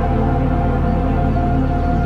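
Ambient background music: steady held drone tones with a soft haze of high notes above.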